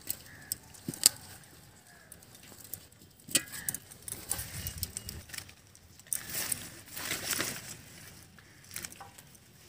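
Hands pulling muddy taro corms off their root clumps and sorting them into a plastic tub: rustling of dry roots and leaves with scattered light clicks and knocks.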